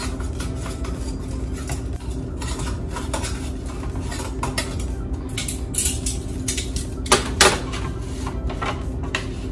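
Metal utensil clinking and scraping against an air fryer basket while chicken pieces are turned, with scattered clinks and a louder double clatter about seven seconds in, over a steady low hum.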